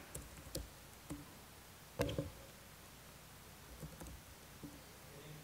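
Faint, sparse laptop keystrokes and small clicks, about eight of them, irregularly spaced, with one louder knock about two seconds in.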